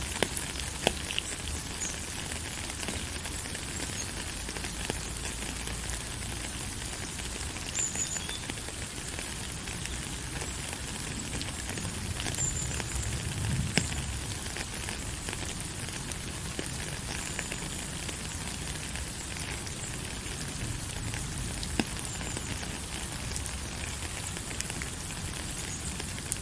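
Steady rain falling: an even hiss dotted with scattered ticks of individual drops, with a few faint, short high chirps now and then.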